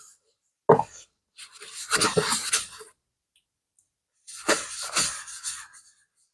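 A soft-bristled brush scrubbing a leather bag in two runs of about a second and a half each, after a single knock just under a second in.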